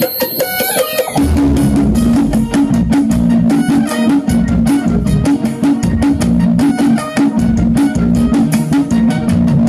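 Electronic dance music: a short rising sweep, then about a second in a heavy drum beat and a repeating bass line come in and carry on.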